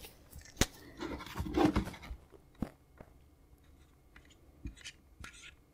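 Handling noise as a power-supply circuit board and small tools are moved about on a cutting mat: a rustling stretch about a second in and a few scattered small clicks and knocks.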